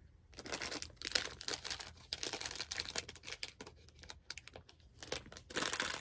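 Thin plastic packaging bag crinkling and rustling in the hands as it is handled and opened, an irregular crackle that starts a moment in and keeps going.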